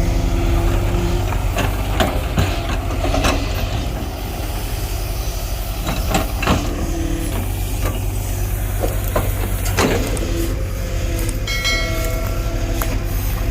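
Heavy diesel earthmoving machinery running steadily under work, with scattered metallic clanks and knocks. There is a brief high-pitched squeal near the end.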